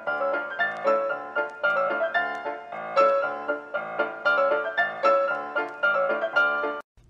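Piano music with quick struck notes, cutting off suddenly near the end.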